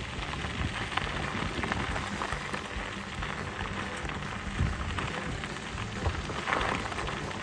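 Wheels rolling over gravel: a steady crackling crunch scattered with small clicks.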